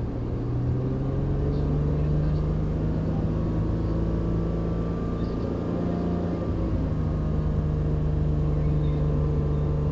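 Nissan Skyline R34's engine running at a steady note while the car stands still, heard from inside the cabin.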